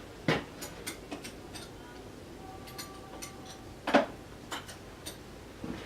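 Wrenches clinking and clicking against a small steel bolt and lathe parts as sizes are swapped and tried, with one louder metal knock about four seconds in.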